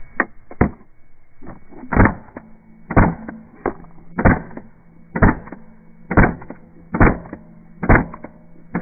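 A series of sharp, loud thumps or cracks, about one a second and sometimes two close together, over a faint steady hum.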